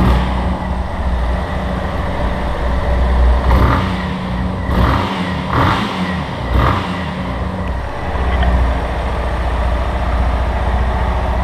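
Yamaha Lander's single-cylinder engine running with a light 'tec-tec' ticking, briefly revved a few times near the middle. The workshop head puts the ticking down to the cam chain bearing.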